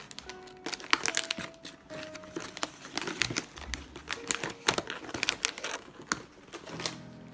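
Plastic bags of dried mushrooms being handled and crinkled, with irregular crackles and rustles throughout.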